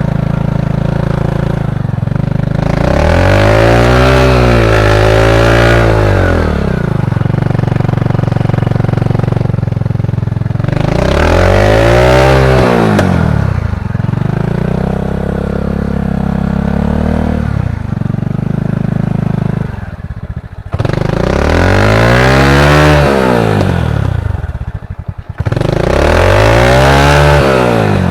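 Honda Supra X 125 (KPH) single-cylinder four-stroke engine in a home-built trail bike, being ridden: it revs up and drops back four times, running steadily in between.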